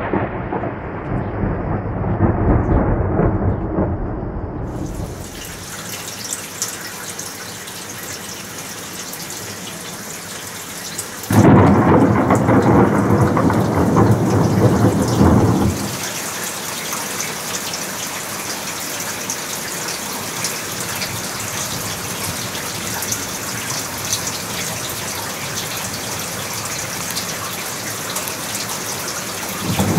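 Thunderstorm: thunder rumbling over steady heavy rain. A long low roll of thunder in the first few seconds gives way to the hiss of rain, then a sudden, louder rumble of thunder about eleven seconds in lasts some four seconds before steady rain returns.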